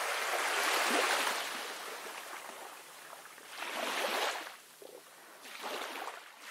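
Sea waves washing in, the surf noise swelling and fading several times.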